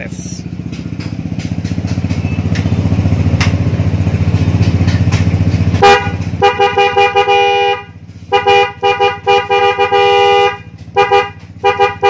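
Newly fitted Denso snail horns on a Vespa Matic scooter, sounded in a test after installation. About six seconds in they blare in a two-note tone: two long blasts, the second about two seconds, then two short ones. Before them, a steady low rumble.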